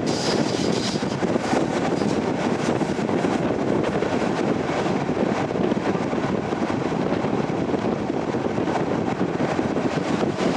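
ER2T electric train under way: a steady rumble of running noise from the wheels and track, with rushing air.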